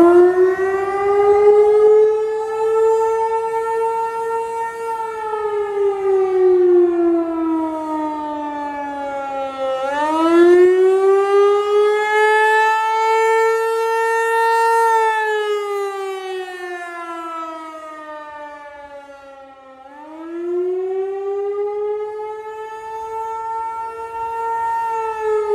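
Tornado warning siren sounding a wail. Its pitch sweeps up, holds for a few seconds, then slowly falls, and sweeps up again about every ten seconds: at the start, about ten seconds in and about twenty seconds in.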